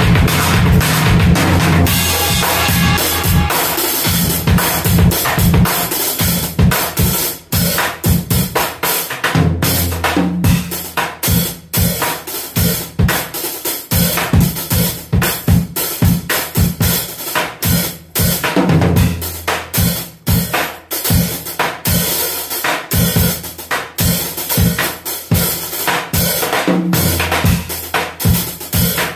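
Drum kit played in a fast, busy groove and fills: bass drum, snare and cymbals struck in dense strokes, with a deep ringing low end under the hits. The snare sounds weird.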